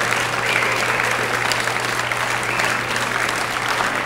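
Large crowd of students applauding, steady dense clapping with no let-up.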